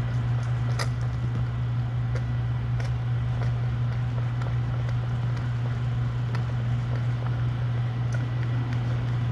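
A steady low hum under faint, scattered wet clicks and smacks: a mother cat licking her newborn kitten and chewing at the placenta.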